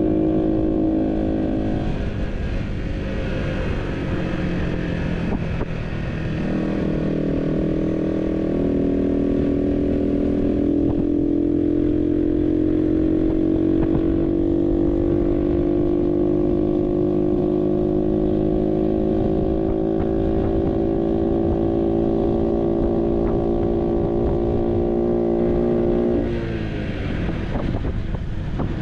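Barton Volcano 50cc moped engine running under way. Its note dips about two seconds in and again around six seconds, then climbs slowly and steadily for most of the stretch, and falls away sharply near the end.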